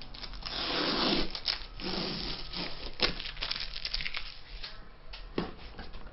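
Packing tape being ripped off a cardboard shipping box: a long rip lasting about a second, then a shorter one, followed by crackling and rustling of tape and cardboard. A dull knock comes near the end.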